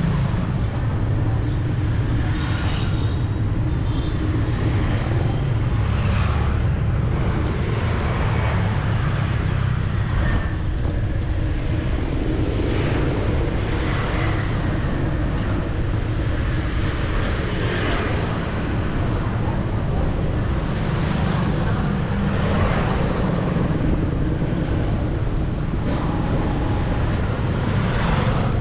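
City street traffic heard from a bicycle: a steady hum of engines and tyres, with vehicles swelling past every few seconds and people's voices in the mix.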